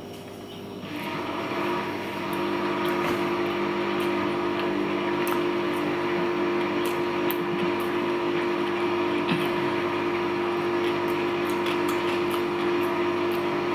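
Dishwasher running with a steady mechanical hum, swelling over the first couple of seconds and then holding level; a model meant to be silent that is plainly noisy.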